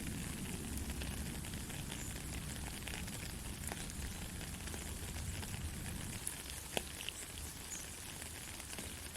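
Soft rain falling steadily as an even hiss, with scattered individual drops ticking and one sharper drop about two-thirds of the way through. A low rumble under it fades away about six seconds in.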